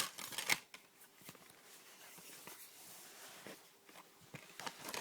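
Plastic film cases being handled: a sharp click at the start and another about half a second in, then faint rustling and a few light clicks near the end.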